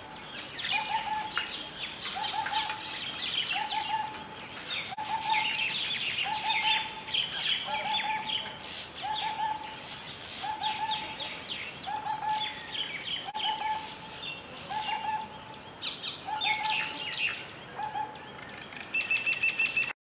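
Forest birds calling: a steady run of short, mellow low notes repeated a little over once a second, under a busy mix of quick high chirps and twitters, with a fast high trill just before the sound cuts off.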